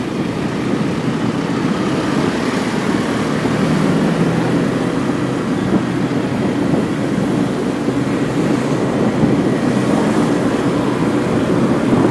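Car driving at a steady speed, heard from inside: a continuous low engine hum under steady road and tyre noise.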